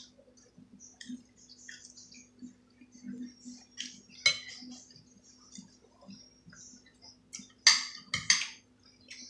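Close-up eating: soft chewing and mouth clicks with a metal fork clinking against a plate, a sharp clatter about four seconds in and two more near the end, over a steady low hum.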